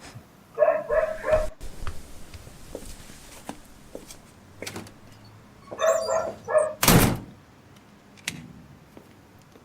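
A dog barking in two quick runs of three or four short barks, one about half a second in and one near six seconds, followed by a loud thud about seven seconds in.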